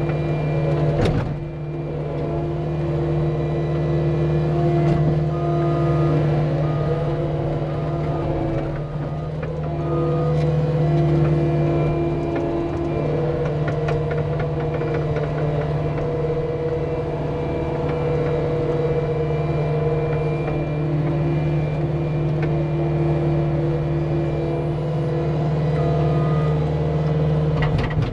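Cat 259D skid steer's diesel engine running steadily while moving dirt, with higher whining tones that come and go over the drone. A sharp clank about a second in and another near the end.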